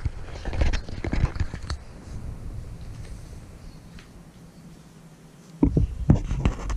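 Handling noise on the camera: knocks and rubbing as a hand grips and adjusts it, with a cluster of loud knocks near the end as the hand reaches right up to the lens.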